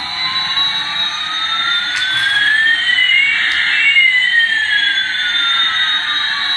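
Electronic jet-engine sound effect from a battery-powered light-up toy Airbus A380, played through its small built-in speaker: a steady rushing noise with one tone rising and another falling, crossing about halfway through. It starts abruptly and has no low end.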